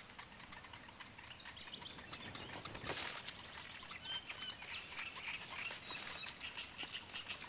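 Faint reed-bed sounds: scattered small bird chirps and dry rustling ticks, with one sharper rustle or snap about three seconds in.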